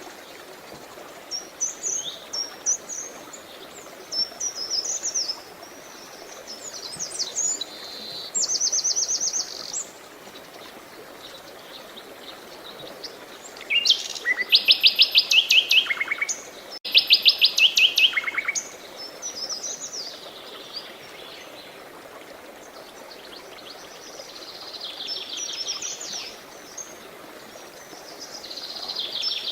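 Several songbirds singing, with scattered chirps and short phrases and rapid trills of quickly repeated high notes; the loudest are two fast trills about halfway through. A steady hiss of running water lies under them.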